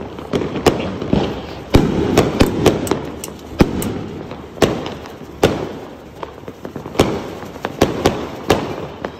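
Diwali firecrackers going off in an uneven string of sharp bangs, some close together with crackling between them around two to three seconds in, others a second or more apart.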